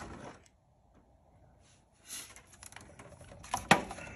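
Hands working the plastic air-intake parts in a car's engine bay: scattered rustles and light clicks, with one sharp click a little before the end.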